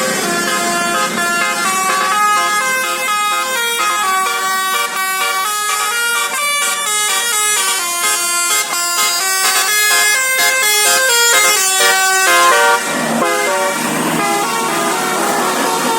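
Basuri telolet bus horn playing a fast tune of short notes that step up and down in pitch. About thirteen seconds in the run of notes stops and longer, lower held tones follow.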